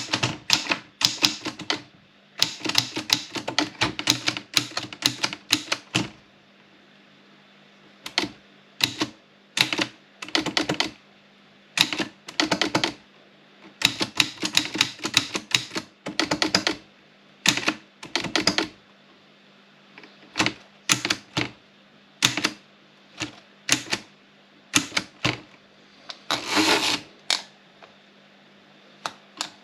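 Olympia Plana manual typewriter being typed on: keys strike in quick runs broken by short pauses, with one longer burst of noise near the end.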